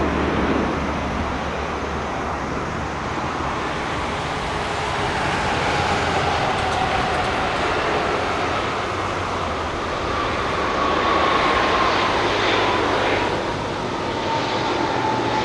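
Boeing 777-300ER's GE90 turbofan engines during the landing roll: a steady jet roar with thin whines that slowly fall in pitch as the engines spool down.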